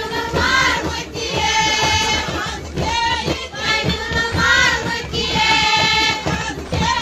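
A song sung by a high voice with held, gliding notes over musical accompaniment.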